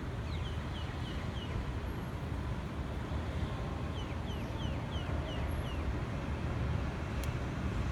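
A bird calling in two runs of short, quick falling chirps, five or six notes each, over a steady low rumble.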